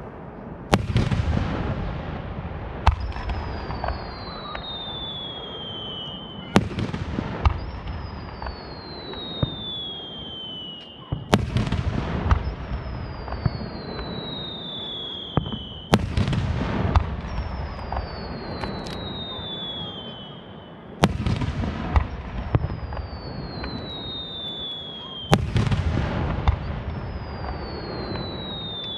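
Aerial fireworks shells bursting in repeated booms and sharp cracks with a rumbling tail. About six times, each is followed by a high whistle that falls steadily in pitch over about three seconds.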